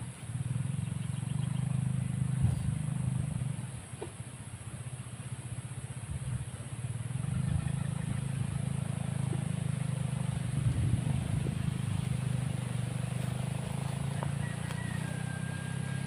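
Low engine rumble of vehicles running nearby. It swells over the first few seconds, eases off about four seconds in, and builds again from about seven seconds on.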